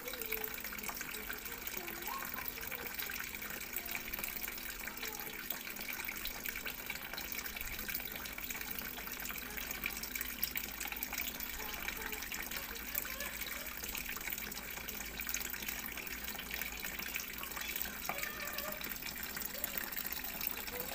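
Steady splashing of a thin stream of water pouring from a clay pot into a shallow pebble-lined pond tub: the small waterfall fed by a solar-powered water pump.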